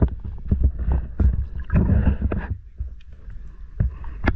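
Water sloshing and slapping against a camera held at the water's surface, with irregular knocks and a low rumble from the waves hitting it.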